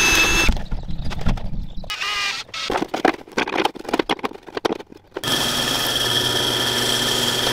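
A hand drill boring through a clear plastic container, stopping about half a second in. Then clicks and knocks of wrenches tightening a brass fitting into the container. From about five seconds in, a bench drill press runs steadily, drilling through a white plastic part.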